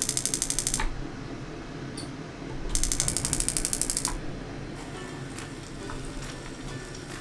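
Gas stove burner's spark igniter clicking rapidly while the knob is held, in two runs: one that stops about a second in and another starting about three seconds in and lasting a second and a half, after which the burner lights.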